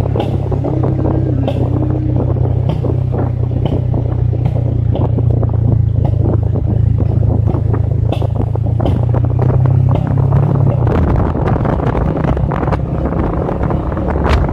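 Wind buffeting the microphone over the steady drone of a 180 cc roadster motorcycle's engine while riding. The engine note changes about ten seconds in.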